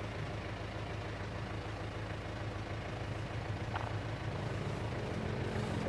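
Steady low engine and road hum of a car, heard from inside the cabin, getting a little louder near the end.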